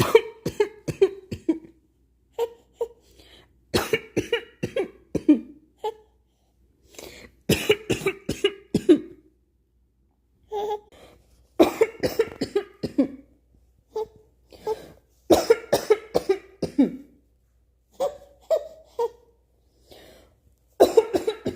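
A person coughing again and again, in short clusters of several coughs every two to three seconds.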